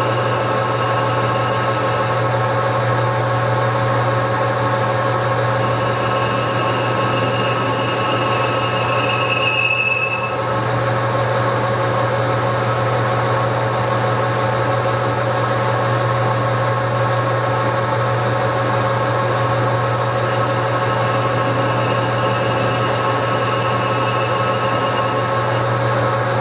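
Metal lathe running steadily while turning down a rifle barrel: a constant motor hum with several steady tones, and a brief higher whine about ten seconds in.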